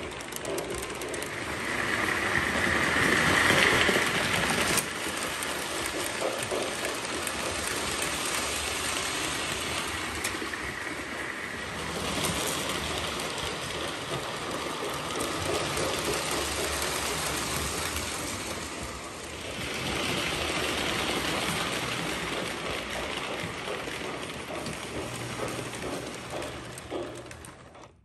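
An O-gauge model train, a 1997 Santa Fe Warhorse Hudson steam locomotive pulling passenger cars, running steadily around the track with a continuous rumble of wheels and motor. It grows louder for a moment a few seconds in.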